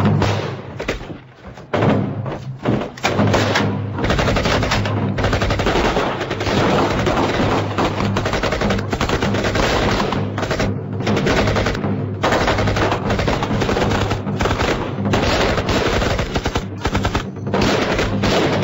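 Heavy gunfire in a battle: scattered shots at first, then from a few seconds in a nearly unbroken hail of rapid rifle and machine-gun fire, with a low music bed underneath.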